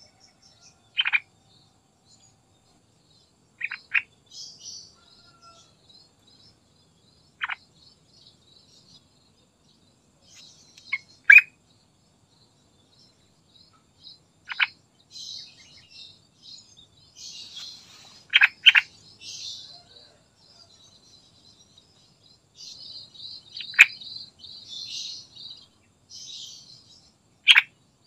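Yellow-vented bulbul calling in song: loud, short, sharp notes every few seconds, with softer high twittering between them that grows busier in the second half.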